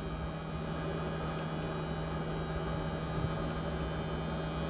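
Outdoor heat pump unit running steadily through a defrost cycle: a constant compressor hum with a steady low tone and a whooshing haze, with no change in the noise.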